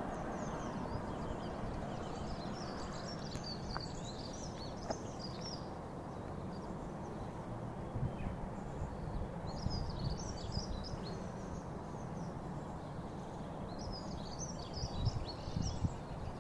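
Small birds chirping in short clusters over steady outdoor background noise, with a low rumble rising near the end.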